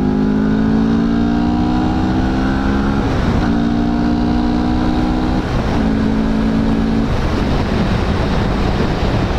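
CFMOTO 650NK parallel-twin motorcycle accelerating, its engine note rising and broken twice, about three and five and a half seconds in, as it shifts up. After about seven seconds the engine note fades under steady wind rush on the microphone.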